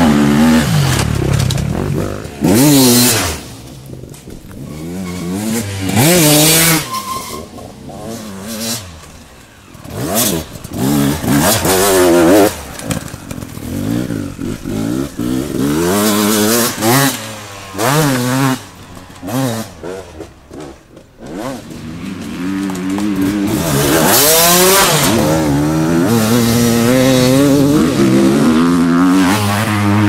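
Enduro dirt bikes racing past one after another, engines revving hard and dropping through the gears as each rider accelerates along the dirt track. The engine noise rises and falls with each bike, with quieter gaps between passes.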